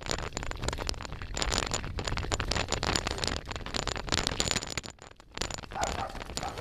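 Bicycle rolling fast over rough asphalt, heard through a microphone mounted on the bike: a dense, crackling rattle of tyre and road noise. It dips briefly about five seconds in.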